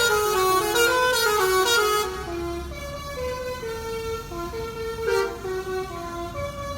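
Basuri multi-tone 'telolet' bus air horn playing a tune of held notes that step up and down. For about the first two seconds the notes are loud and quick; after that it goes on more quietly with longer notes.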